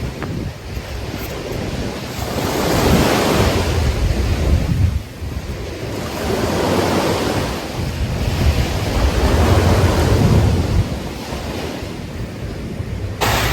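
Ocean waves breaking on a beach, the surf swelling and ebbing several times, with wind rumbling on the microphone.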